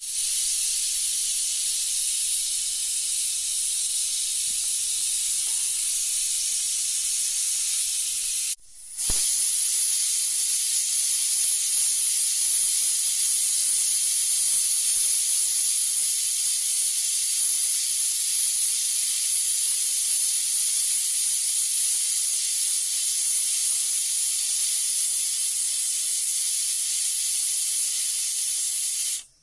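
A steady, even hiss. It cuts out abruptly for about half a second around eight and a half seconds in, and a single click comes as it returns.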